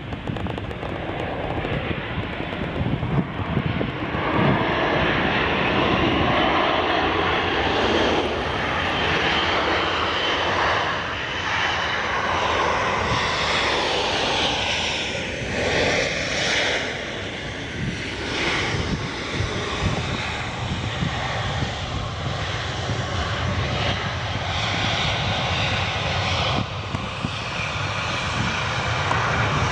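Airliner passing close by, its engines a loud, sustained rush with tones that slide in pitch through the middle as it goes past.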